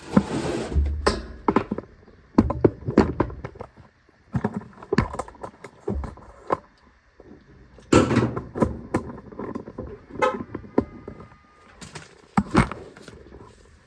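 Handling noises: a short rustling burst, then an irregular string of knocks, clicks and clatter as tools and objects are picked up and set down.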